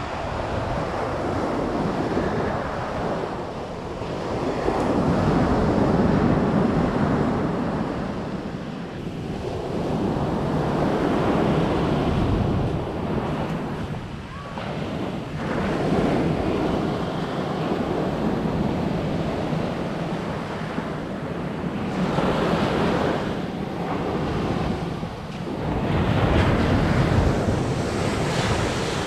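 Atlantic surf breaking and washing up a sandy beach, the noise swelling and falling back every few seconds as each wave comes in, with wind buffeting the microphone.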